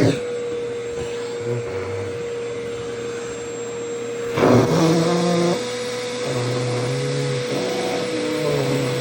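Vacuum cleaner running, its motor giving a steady whine over the rush of air. About four and a half seconds in, a louder surge of suction noise is followed by shifting low tones as the nozzle pulls at the skirt fabric.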